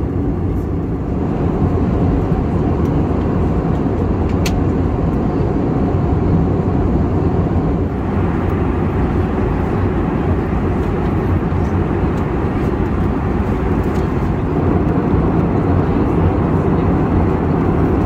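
Steady cabin noise of an Airbus A321neo airliner in cruise: the rush of airflow and the drone of the engines, with a single light tick about four seconds in.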